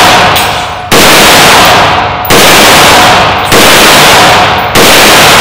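AR-15 rifle firing single shots at a steady pace, four shots about 1.3 seconds apart, each ringing out and fading for about a second in the indoor range.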